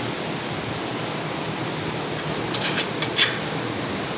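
Steady hiss of shop background noise, with a few light clicks about two and a half seconds in and a sharper metal clink just after three seconds as the tubular metal rack frame is set against its mounting bracket.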